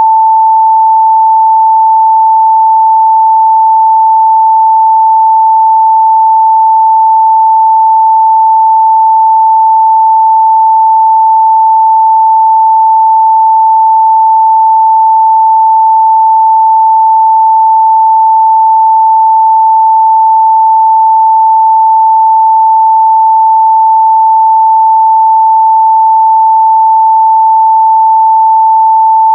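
Steady 885 Hz sine-wave test tone, one pure pitch held unchanged and loud.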